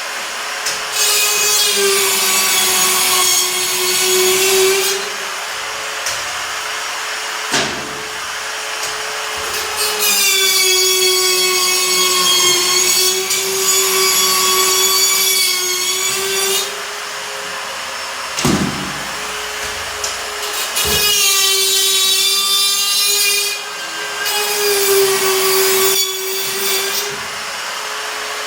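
DeWalt DCS551 cordless drywall cut-out tool running at a steady high speed, its spiral bit cutting through gypsum board in three stretches of several seconds each. Between the cuts it spins freely with a steady whine, and a few knocks are heard.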